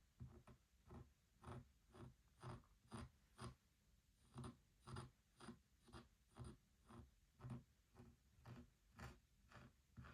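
Soft, even tapping on a wooden Shut the Box game board, about two light knocks a second.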